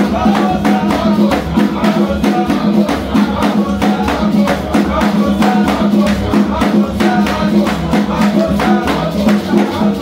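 Upbeat praise and worship music played live on keyboard and guitar over a steady beat, with voices singing along.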